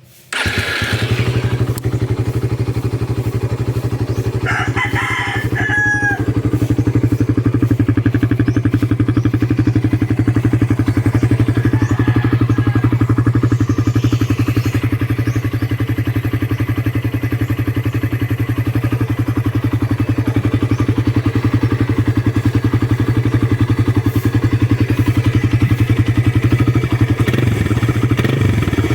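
Suzuki Raider 150 carburetor model's single-cylinder four-stroke engine on its stock exhaust, coming in suddenly and then idling steadily. A rooster crows once, about five seconds in.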